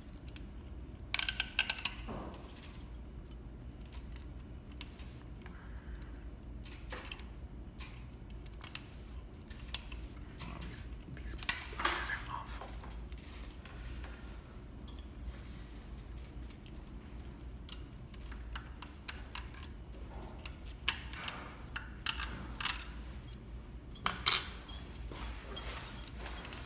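Small metal clicks and taps at irregular intervals as tweezers and a wire threader work against the looper parts of a Juki MO-6700DA serger during threading, over a low steady hum.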